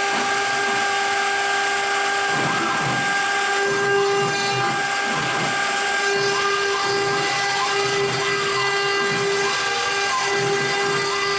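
CNC router spindle running at speed, a steady high whine, as its bit carves a signature into a wood board. From about two seconds in, warbling tones rise and fall over the whine as the head moves along the cut.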